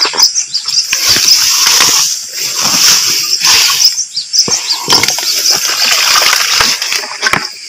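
Wet grass rustling and water splashing as a perforated PVC-pipe eel trap is pulled by hand out of swampy grass, in irregular noisy bursts. A steady high insect drone runs underneath.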